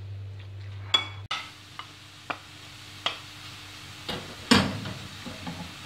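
A spoon clinks once against a glass bowl as spiced liver is mixed. Just over a second in, chopped onion starts sizzling in a non-stick frying pan, with a wooden spatula stirring and knocking against the pan, the loudest knock about three-quarters of the way through.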